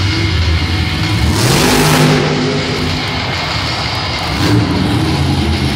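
Monster truck's supercharged V8 revving hard as the truck accelerates across the dirt, the engine pitch climbing under a loud blast about a second and a half in, then rising again briefly near the end.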